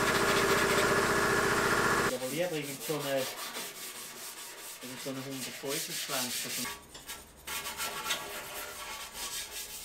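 Abrasive pad (Scotch-Brite) being rubbed by hand over a sandblasted steel Vespa body panel, scuffing it before priming. The sound is loud and dense for about the first two seconds, then drops suddenly to quieter, separate scratching strokes.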